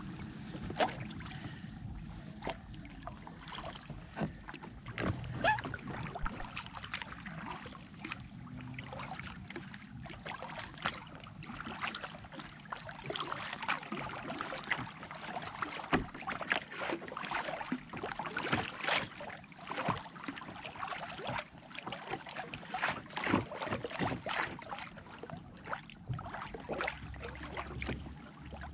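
Water lapping and splashing against a kayak's hull as it is paddled along a river, with many small, irregular slaps and drips.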